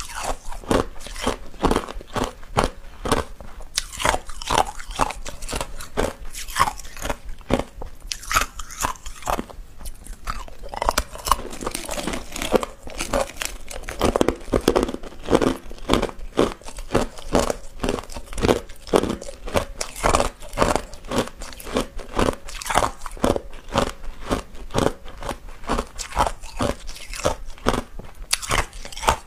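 Hard clear ice being bitten and chewed close to a microphone: a steady run of sharp, rapid crunches and cracks.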